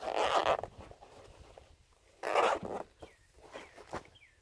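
Zipper on a fabric chair carry pouch being pulled shut in two quick rasping strokes, the first at the start and the second a little over two seconds in, followed by a few light handling ticks.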